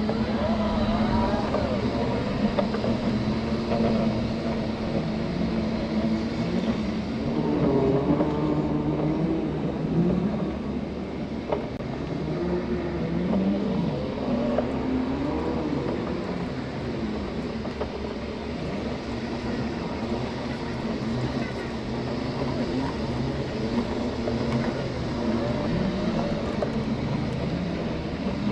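Segway x2 off-road transporter's electric drive whining as it is ridden, the pitch rising and falling with the changes in speed, over a steady rough rumble.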